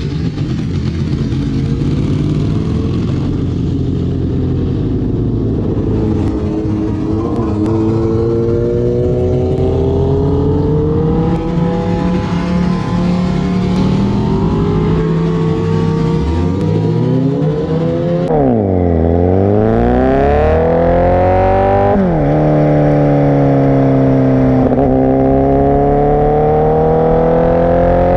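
Honda CBR1000RR Fireblade's inline-four through a Racefit aftermarket exhaust, accelerating under load. The revs climb, drop sharply at each upshift, then climb again; once, about two-thirds through, they fall away and rise again.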